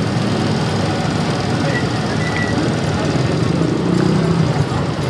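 Street noise dominated by a motor vehicle engine running steadily nearby.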